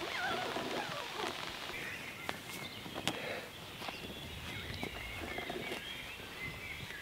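Birds chirping over a quiet open-air background, with a few light clicks and soft cloth rustling from hands working at a large-format camera's lens.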